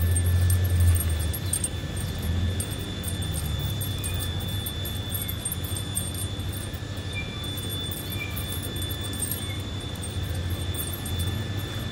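Steady low background rumble with a constant high thin whine, slightly louder in the first second or so, and a few faint short chirps scattered through.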